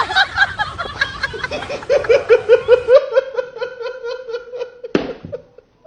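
Hearty high-pitched laughter in fast, even ha-ha-ha pulses that trail off toward the end, with a sharp click just before five seconds in.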